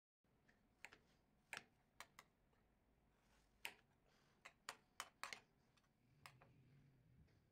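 Knife blade clicking against a glass cutting board while cutting fish into chunks: about a dozen faint, sharp clicks at uneven intervals.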